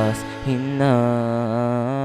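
Music from a slow, sad song: a note ends, and about half a second in a long, slightly wavering note is held.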